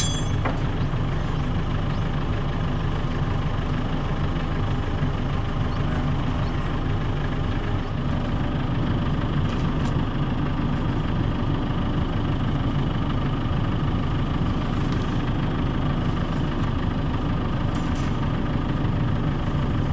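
An engine running steadily at idle, with an even, unbroken drone.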